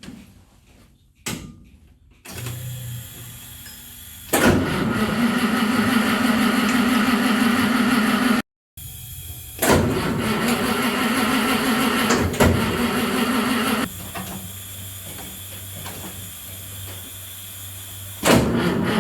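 A small electric motor running with a steady whine, heard in several separate stretches that start and stop suddenly, with a quieter lower hum in between.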